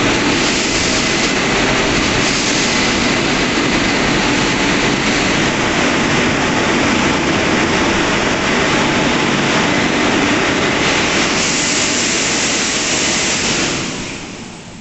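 Dryer blowers of a WashTec SoftCare 2 Pro rollover car wash running, a loud steady rush of air over the car, dying away near the end.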